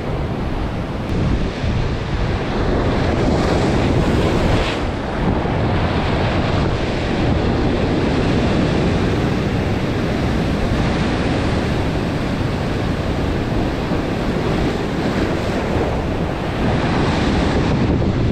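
Heavy sea surf continuously surging and breaking against shore rocks, with wind buffeting the microphone.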